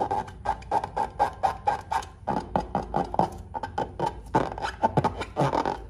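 Hand squeezing and rubbing a slime-filled rubber balloon: a quick, uneven run of short rubbing strokes, about five a second, stopping just before the end.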